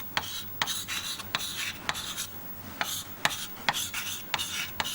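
A pen scratching out quick strokes of a diagram on a writing surface, a series of short rasping scrapes.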